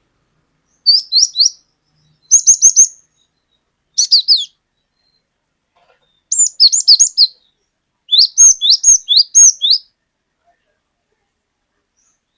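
Cinereous tit (glatik batu) singing its 'wucit wucit' song: five short phrases of three to five repeated, sharply rising high notes, separated by pauses of about a second.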